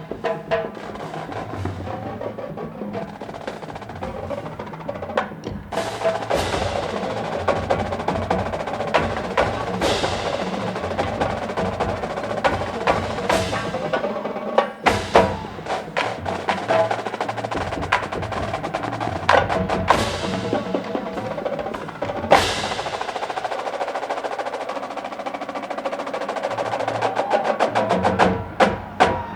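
College marching band playing, with the percussion section to the fore: rapid drum strikes and rolls over the band. Several cymbal-like crashes ring out along the way.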